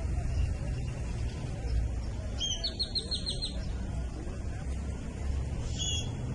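A bird calling: a quick trill of about seven high notes some two and a half seconds in, and a short high call near the end, over a steady low rumble.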